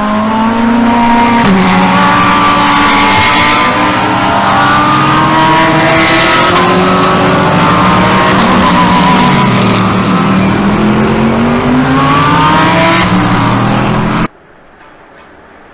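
Several GT3 race cars passing one after another at speed, their engine notes overlapping and rising and falling in pitch as each goes by. The sound cuts off suddenly near the end, leaving only a faint background.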